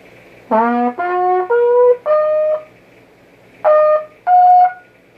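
Trumpet played solo: four separate notes climbing in pitch, a pause of about a second, then two higher notes.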